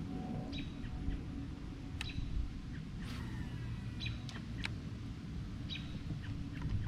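A small bird chirping, short high calls repeating every second and a half or so, over a steady low rumble.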